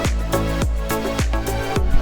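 Background dance music with a steady electronic beat, its kick drum striking about three times a second.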